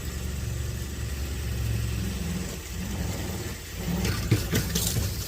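An RV's 12-volt fresh-water pump running with a steady low hum as it pushes marine antifreeze through the water lines to the open kitchen faucet. From about four seconds in come irregular splashes and clicks.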